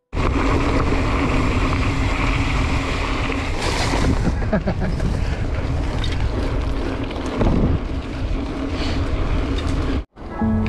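Wind buffeting the microphone of a camera on a moving gravel bike, a steady rushing noise with a low hum underneath that swells briefly twice.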